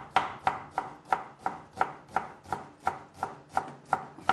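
Chef's knife chopping an onion on a wooden cutting board: steady, even knocks of the blade on the board, about three a second.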